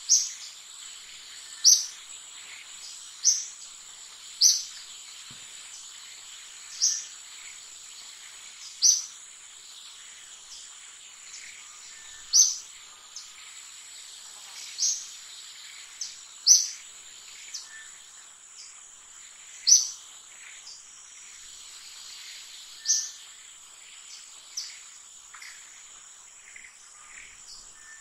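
A steady high insect hum, with a bird's short, sharp call repeated about every two to three seconds, the loudest sound.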